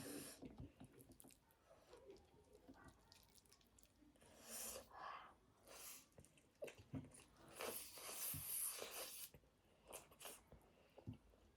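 A person chewing food close to the microphone, quiet, with soft clicks and several short breathy, hissing bursts, the longest lasting nearly two seconds about eight seconds in.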